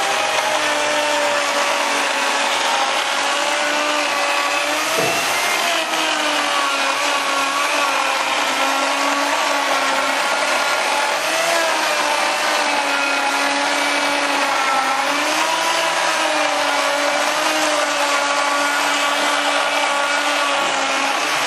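Handheld circular saw running continuously as it cuts through a structural insulated panel's OSB skin and foam core, its motor tone dipping slightly and recovering several times as the blade takes the load.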